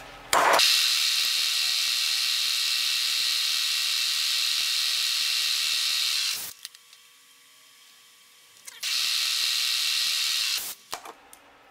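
Milling machine spindle running a small drill into a cast slide cap to bore the tap-drill hole for a 2-56 thread: a steady high-pitched hiss-whine that starts suddenly, runs about six seconds, drops away for about two seconds, then runs again for about two seconds.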